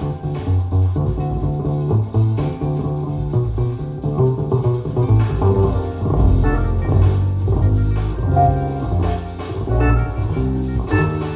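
Recorded jazz or blues music with plucked guitar over a prominent bass line, played back through Tannoy Stirling loudspeakers.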